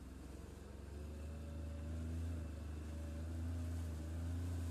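Boat engine running with a steady low drone that grows louder about a second in, over a hiss of wind and water.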